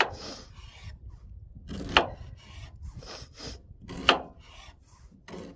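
Knife cutting an onion on a cutting board: scraping slicing strokes, with two sharp knocks of the blade hitting the board about two seconds apart. A low wind rumble runs underneath.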